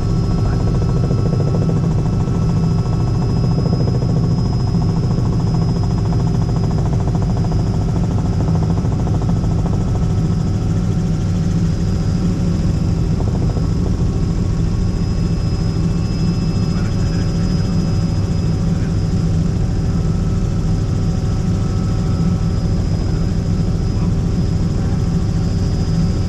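Helicopter engine and rotor noise heard from inside the cabin in flight: a loud, steady drone with several constant tones, unchanging throughout.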